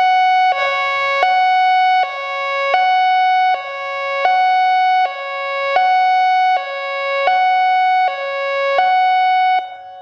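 American Signal Corporation I-FORCE electronic outdoor warning siren sounding its hi-lo test tone, switching between two pitches about every three-quarters of a second. It cuts off near the end, leaving the fainter tone of the system's other sirens farther away.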